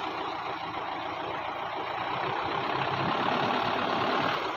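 A vehicle engine running steadily, growing gradually louder and easing off just before the end.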